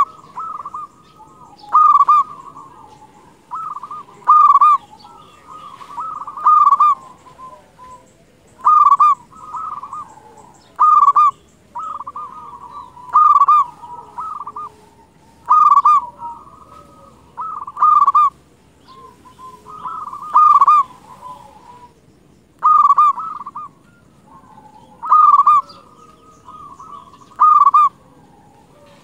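Local zebra doves (perkutut) cooing: a short rolling coo phrase, repeated about every two seconds, with softer cooing between the phrases.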